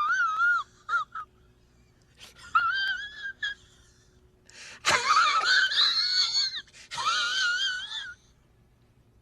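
The 'Zach laugh' meme sound effect: a very high-pitched, squeaky wheezing laugh in several separate bursts of wavering pitch.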